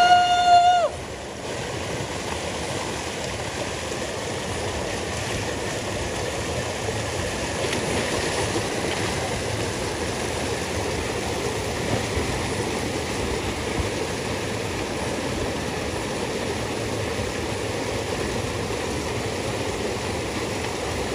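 Steady rush of river water pouring over a small rock cascade into a pool. Right at the start a short, loud, high held tone cuts in over the water and stops within a second.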